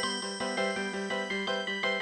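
LG AX145 mobile phone playing one of its polyphonic ringtones: a synthesized melody of quick, short notes over a steady held low tone.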